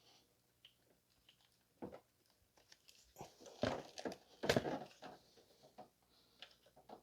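Scattered clicks, rattles and crinkling from hands working on parts in a car's engine bay, loudest in a cluster of clattering about four seconds in.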